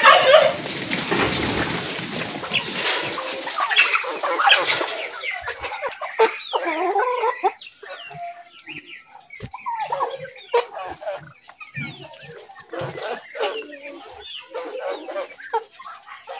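A flock of free-ranging chickens and other poultry clucking and cheeping, many short calls overlapping, over a rush of noise in the first couple of seconds.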